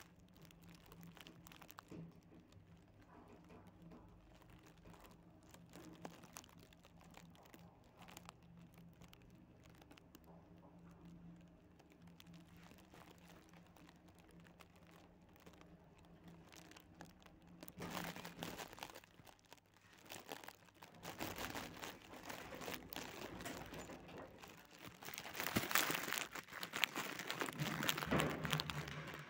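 Steady low hum of an elevator car with faint scattered clicks. From about eighteen seconds in, louder rustling, shuffling and clicks take over, loudest near the end, as someone walks behind the cat.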